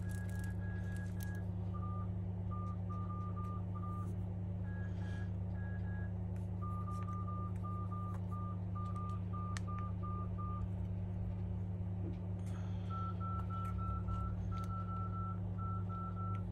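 Runs of short electronic beeps, several a second, each run held at one of a few fixed pitches, with a pause of a couple of seconds in the middle, over a steady low hum.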